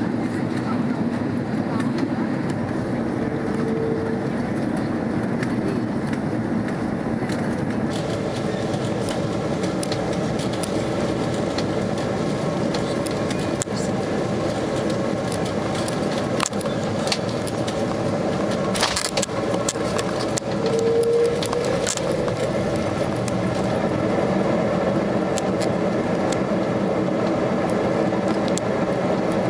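Airliner cabin noise from a window seat: the steady drone of jet engines and airflow during the descent, changing about eight seconds in to the rumble of the landing rollout on the runway, with scattered clicks and rattles. Two short single tones sound, about four seconds in and again about twenty-one seconds in.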